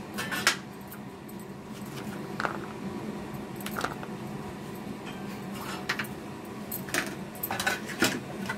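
A steel spoon lightly clinking and tapping against a glass bowl and a small serving bowl as candied tutti-frutti pieces are spooned into whipped mango ice cream mix, a handful of short ticks spread out over a steady low hum.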